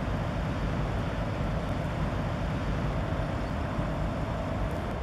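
Steady low vehicle rumble, unbroken and even in level.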